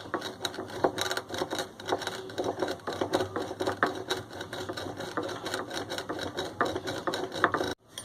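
Roasted black cardamom seeds being ground by hand: a rapid, uneven run of small knocks and scrapes that cuts off abruptly near the end.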